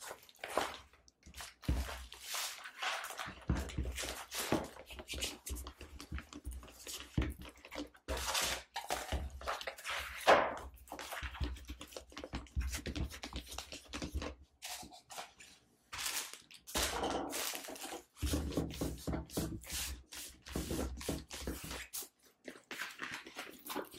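A plastic-covered diamond painting canvas with its paper backing being handled and rolled backwards to flatten it: irregular crinkling and rustling of plastic film and paper, with occasional thumps against the table.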